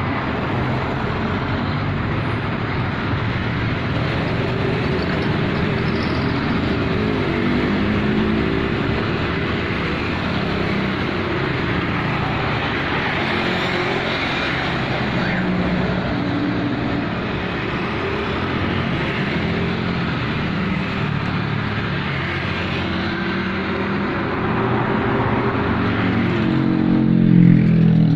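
Road traffic: motor vehicles passing one after another with their engines running, and a louder vehicle going by close near the end.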